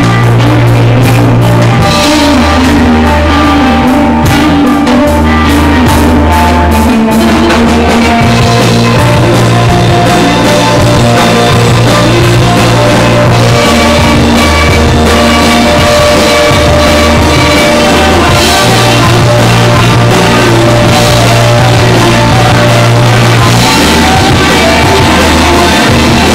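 Live rock band playing loud: two electric guitars over a drum kit, with a low line that moves to a new note every two seconds or so.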